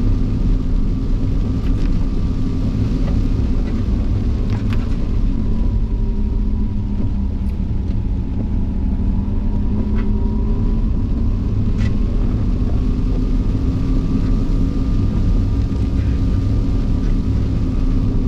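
GMC Hummer EV driving over rough off-road ground, heard from inside the cabin: a steady low rumble of tyres and suspension, with the electric motors' faint whine drifting slowly up and down in pitch. A few short sharp knocks come through, scattered across the stretch.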